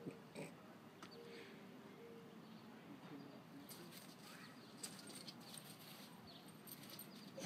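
Near silence: faint outdoor background hiss with a few faint, indistinct chirps and clicks.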